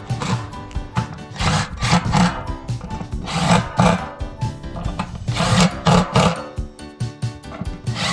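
Repeated rubbing, scrubbing strokes in irregular runs of a few per second, most likely a brush scrubbing grime off washing-machine parts, over background music.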